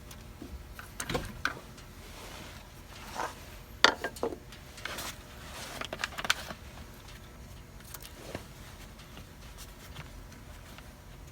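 Handling noises from hands working with tools and parts: scattered clinks, knocks and scrapes in short clusters, with the loudest knock about four seconds in.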